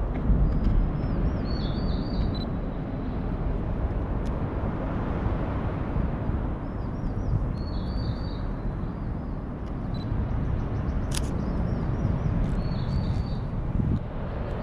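A small songbird singing the same short high phrase three times, about five seconds apart, over a steady low rumble.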